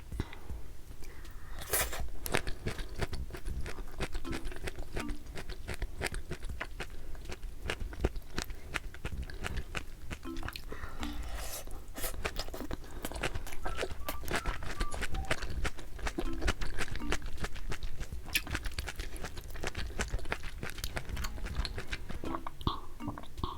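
Close-miked eating sounds: crunching, biting and chewing in an irregular run of crackles and moist clicks.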